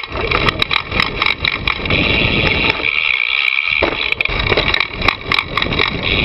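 A mountain bike ridden along a dirt trail, heard from a camera on the bike: the tyres rumble over the ground while the chain and frame rattle in many sharp clicks. About three seconds in the low rumble briefly drops away, then returns with a knock.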